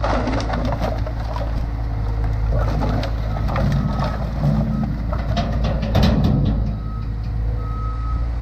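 Skid steer loader's engine running steadily while split firewood tumbles from its tipped bucket onto a pile, the pieces clattering against each other in a long run of knocks, loudest about six seconds in.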